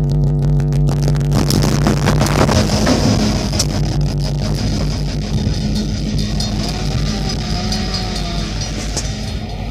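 Diesel freight locomotive passing close by, its engine running with a steady hum and its wheels clicking over the rails. Partway through the sound changes to a louder, noisier pass with a few sharp knocks, and in the second half a wavering tone runs alongside.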